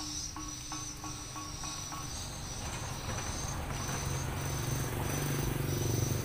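Insects trilling steadily at a high pitch, broken by short gaps about once a second. A low hum grows louder through the second half.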